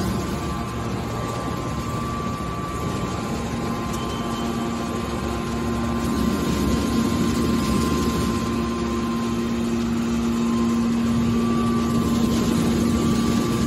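Hydraulic can baler's electric motor and pump running with a steady hum, growing slightly louder in the second half.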